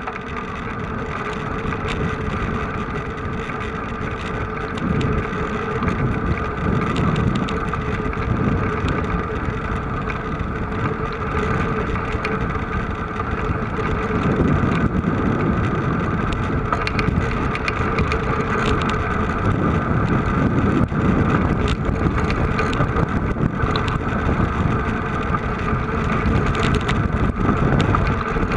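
A vehicle engine running steadily, with wind buffeting the microphone.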